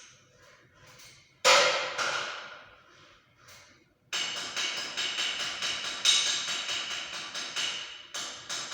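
Hammer strikes during an air-conditioner installation: two hard blows, then after a short pause a quick run of lighter taps, about three a second, with a ringing tone.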